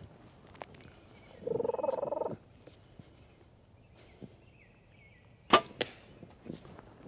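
A wild turkey's rattling gobble about a second and a half in, then a single sharp crack of a bow shot about five and a half seconds in, the loudest sound here.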